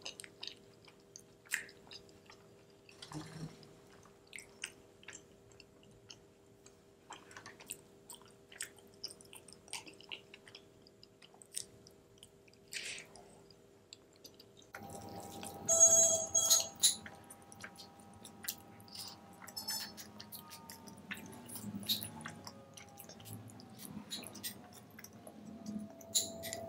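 Close-miked chewing and lip smacking of soft, creamy macaroni and cheese, in scattered short smacks and clicks. Now and then a metal spoon scrapes and clinks against a glass bowl, most loudly about halfway through.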